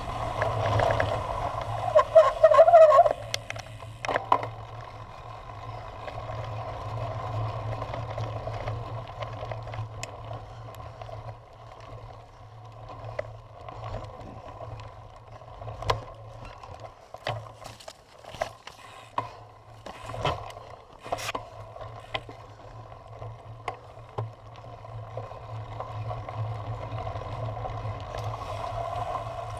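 Cyclocross bike being ridden over bumpy grass and then a dirt trail, heard from a camera mounted on the bike or rider: a steady rush of wind and tyre noise with frequent clicks, rattles and knocks from the bike on bumps. About two seconds in there is a brief, loud, wavering sound.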